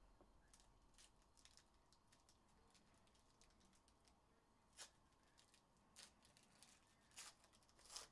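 Faint crinkling and crackling of foil trading-card pack wrappers being handled, with a few sharper crackles in the second half, the loudest near the end.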